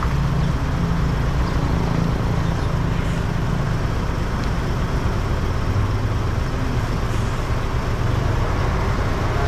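Steady low rumble of a truck's diesel engine running at idle, with an even noise over it.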